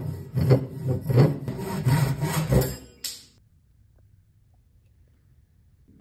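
Hand saw cutting through the end of a hickory axe handle, trimming the excess flush with the axe eye, in rhythmic strokes about two to three a second; the sawing stops a little after three seconds in.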